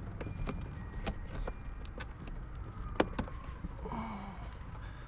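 Small plastic and metal clicks and knocks as the brake booster's vacuum hose fitting is worked back into its rubber grommet. One sharp click about three seconds in stands out, over a steady low rumble.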